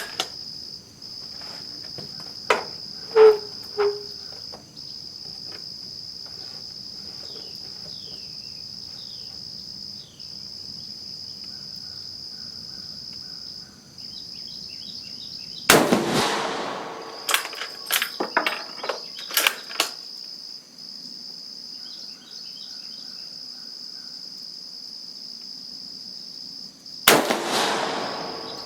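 Two shots from a 7.35 mm Carcano M38 bolt-action short rifle, about eleven seconds apart, each with a ringing tail. Sharp metallic clicks of the bolt being worked follow the first shot. Under it all is a steady high insect buzz.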